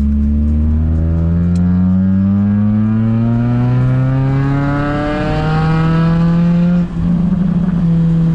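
Lada Priora's four-cylinder engine running with the muffler removed, very loud, accelerating with a rising exhaust note. About seven seconds in it drops out briefly at a gear change, then settles on a steadier, lower note.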